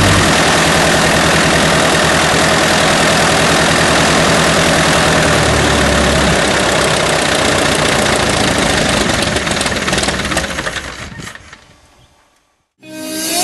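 Van's RV-9A's piston engine and propeller running on its first ground run, then shut down: the sound fades away between about ten and twelve seconds in, as the propeller runs down to a stop.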